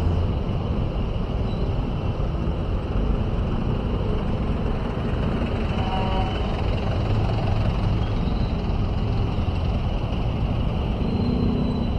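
Steady rumble of motorcycle and vehicle engines in slow, dense street traffic, heard from among the vehicles.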